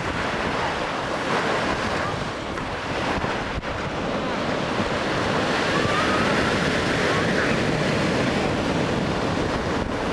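Sea waves breaking and washing up the beach in a steady surf, swelling louder about halfway through as a larger wave breaks, with wind rumbling on the microphone.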